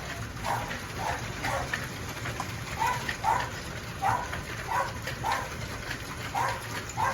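A dog barking over and over, about two short barks a second, over a steady hiss of hail and rain coming down.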